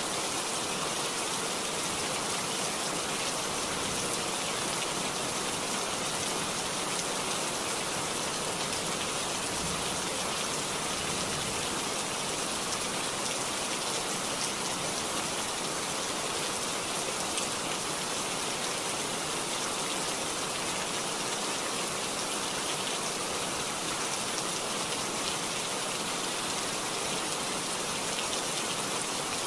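Heavy rain falling in a steady, even hiss, mixed with muddy floodwater rushing down a hillside.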